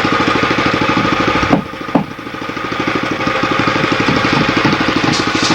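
An engine running with a fast, even pulsing beat. Two sharp knocks come about one and a half and two seconds in, after which it drops in loudness and builds back up.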